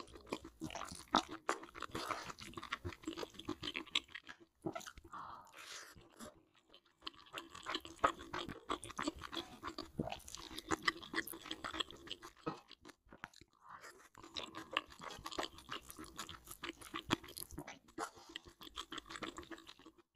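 A person chewing and crunching a mouthful of creamy noodles with a crispy topping, in close mouth sounds broken by a few short pauses between bites.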